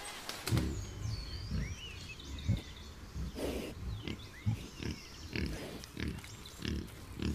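Wild boars grunting repeatedly, short low grunts coming roughly twice a second from about half a second in.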